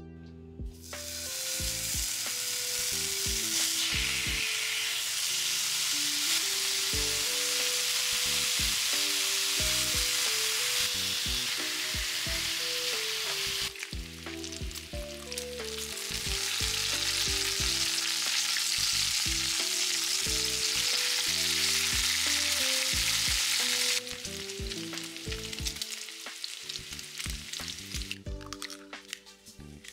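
Bacon strips sizzling as they fry in a pan, an even, loud hiss, over light background music. The sizzle dips briefly around the middle and cuts off abruptly near the end, leaving only the music.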